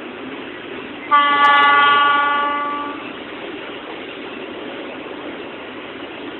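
Diesel locomotive's horn sounding one blast of about two seconds, starting about a second in and fading out.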